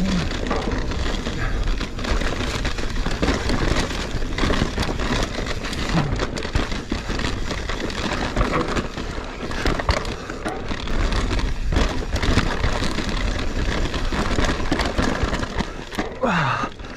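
Mountain bike riding down a rough dirt trail, heard from an action camera on the bike or rider. Tyres crackle continuously over dirt and roots while the bike clatters and rattles, over a steady low rumble.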